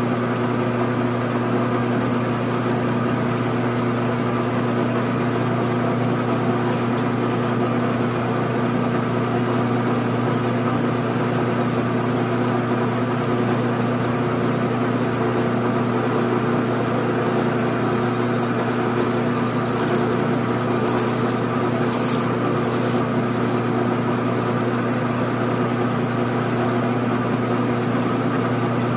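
Grizzly G9972Z bench lathe running at a steady speed, a constant motor and gear hum with a few fixed tones, as it turns a tapered point on brass hex stock. Partway through, several brief high-pitched bursts come from the tool cutting the brass.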